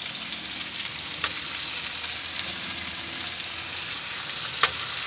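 Whiting fillets and onions frying in butter in a pan: a steady sizzling hiss with an occasional sharp pop, the loudest a little before the end.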